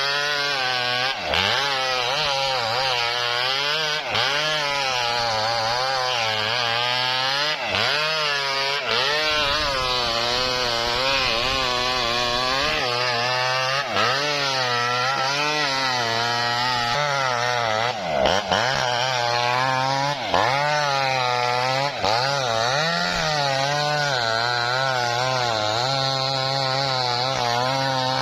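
A small mini Maestro chainsaw ripping lengthwise through a coconut palm trunk. The engine runs continuously at high revs, its pitch dipping and recovering over and over as the chain bogs under load in the wood.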